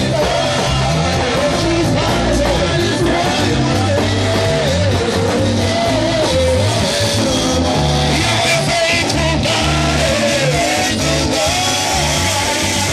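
Music with singing over a band backing of guitar and bass with a steady beat.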